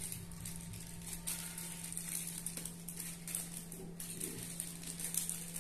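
Aluminium foil wrapping being pulled open by hand: soft, irregular crinkling and rustling, with a steady low hum underneath.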